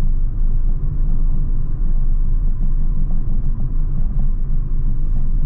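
Steady low rumble of a car being driven, its road and engine noise heard from inside the cabin.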